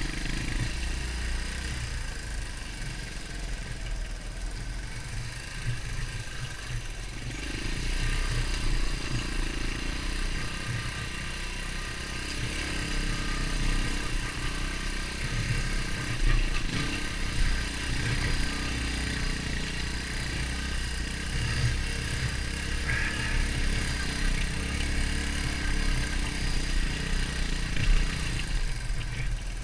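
Beta Alp 200 dirt bike's single-cylinder four-stroke engine running while the bike is ridden, its note rising and falling with the throttle and a little louder from about seven seconds in.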